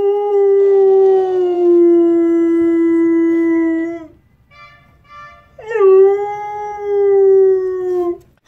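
Siberian husky howling: two long howls. The first lasts about four seconds and slowly sinks in pitch. The second starts a little after the middle with a quick upward swoop, then holds and falls slightly at its end.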